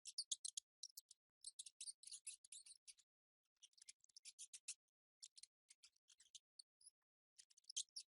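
Mice making rapid, high-pitched chirping clicks in short bursts, separated by brief pauses.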